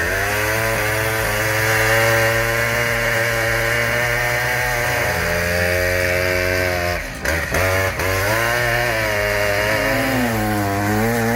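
Two-stroke chainsaw running under load, its pitch sagging and recovering as the chain bites, with a couple of brief drops about seven seconds in.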